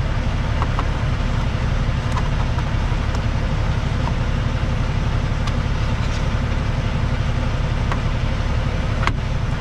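Semi truck's diesel engine idling with a steady low rumble, heard from inside the cab. A few faint clicks come through it, with a sharper tick near the end.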